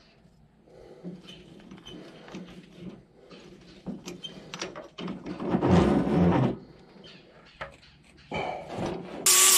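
Handling steel flat-bar pieces and clamping them in a cast bench vise: scattered light metal clicks and knocks. A louder sound lasting about a second comes about halfway through, and a loud steady noise starts right at the end.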